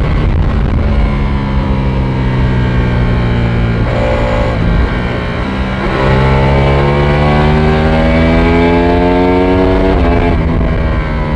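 Ducati Panigale V4S's 1103 cc V4 engine accelerating at speed, its pitch climbing steadily. The pitch dips briefly about four to five seconds in, climbs again, and falls sharply near the end, as at an upshift. Wind rush sounds underneath.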